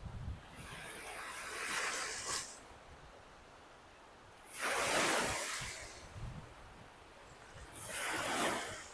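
Lake Michigan waves breaking and washing up on the beach. Three washes of surf come in turn, the middle one the loudest, with quieter gaps between.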